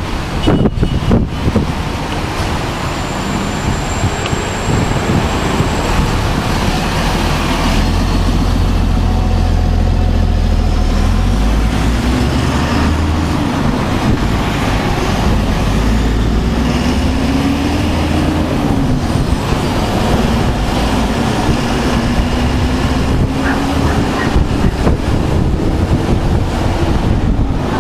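Motorcycle engine running while riding in town traffic, its pitch rising and falling with the throttle, with wind noise on the handlebar-mounted microphone.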